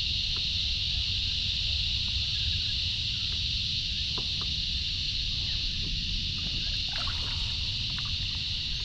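A steady high-pitched drone of insects, over a low rumble, with a few faint ticks near the middle.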